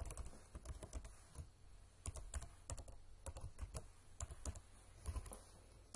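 Typing on a computer keyboard: an irregular run of key clicks with short gaps between bursts.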